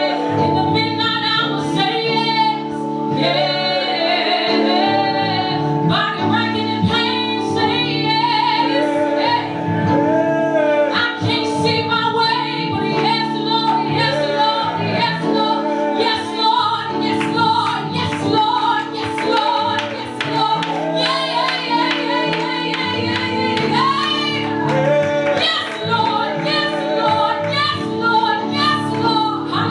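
Church praise music: a woman sings a melismatic, gliding line over held instrumental chords.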